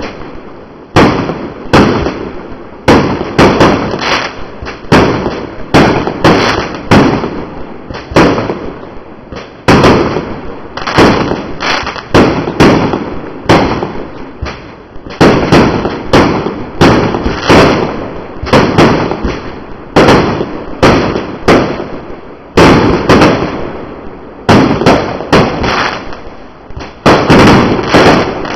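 Fireworks exploding in quick succession: sharp bangs about once a second, sometimes two close together, each trailing off in an echoing rumble.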